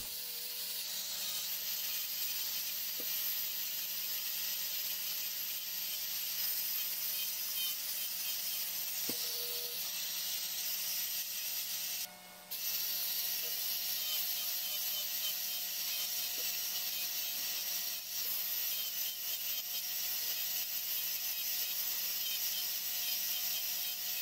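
Black & Decker rotary tool with a small sanding drum spinning and sanding a small piece of soft wood, a steady high-pitched whine with rubbing; it cuts out for about half a second near the middle. Its front bearing is worn out, clogged with rock dust until it is basically just a steel bushing.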